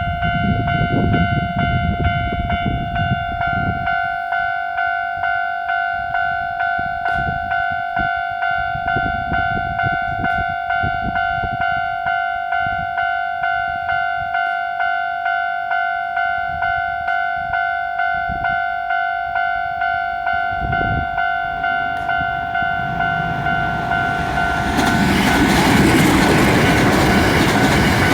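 Japanese railway level-crossing warning bell ringing in a steady, quick, evenly repeating ding. About 25 seconds in, the noise of a Hankyu electric train passing over the crossing rises over it and becomes the loudest sound.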